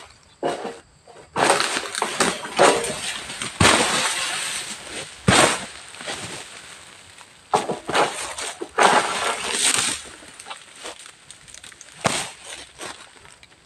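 A long-pole harvesting sickle working in an oil palm crown: bouts of tearing, crackling noise as it pulls against the frond and bunch stalks, with two sharp cracks a few seconds in and shorter cracks later.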